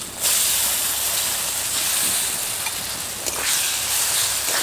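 Chopped onion frying in hot mustard oil in a kadai: a steady sizzle that gets sharply louder just after the start, with a few faint ticks later on.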